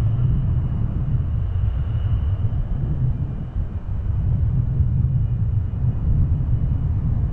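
Airbus A380-841's four Rolls-Royce Trent 970 turbofan engines on final approach: a steady low rumble with a faint high whine above it.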